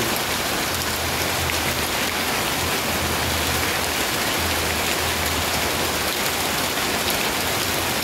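Heavy rain pouring onto trees and leaves, a steady, even hiss.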